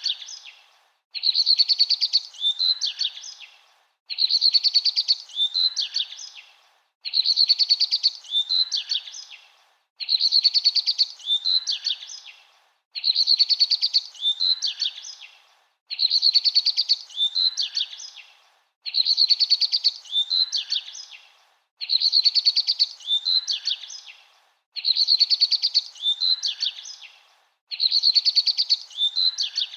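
A bird singing a short chirping phrase that repeats identically about every three seconds, with dead silence between repeats, as in a looped recording.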